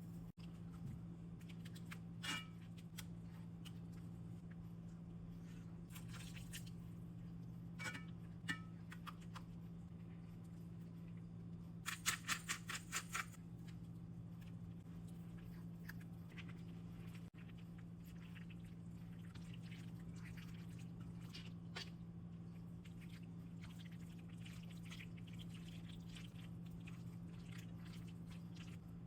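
Quiet cooking sounds: scattered clicks and handling noises of utensils and food, over a steady low hum. About twelve seconds in comes a quick run of about six sharp ringing taps, like a utensil knocked against a pot.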